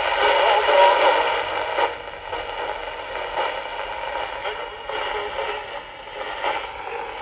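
Unitra Eltra Donald MOT-763 pocket transistor radio playing Polish Radio Program 1 on long wave through its small speaker: thin broadcast sound with hiss and interference. It gets quieter about two seconds in as the tuning dial is turned.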